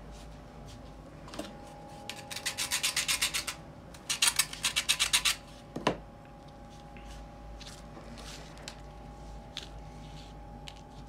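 Two quick bursts of rapid scraping strokes, about nine a second, each lasting a second or so, followed by a single sharp click, over a faint steady hum.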